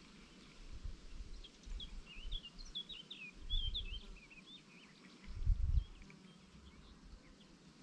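A small songbird sings a rapid twittering run of short, high chirps for a few seconds. Low, muffled bumps on the microphone sound under it, the loudest a little after halfway.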